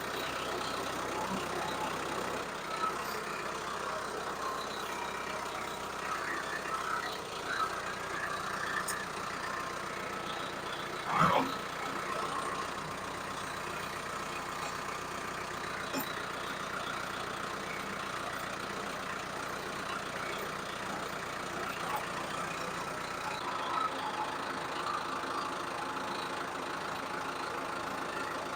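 Tractor engine running steadily while pulling a subsoiler through the ground, with one sharp clunk about eleven seconds in.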